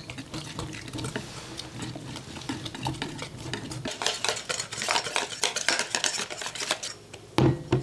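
Wire whisk beating egg, water and flour-based chicken coating powder into a thick batter in a mixing bowl: rapid, irregular clicks and scrapes of the wires against the bowl. A short pitched sound comes near the end.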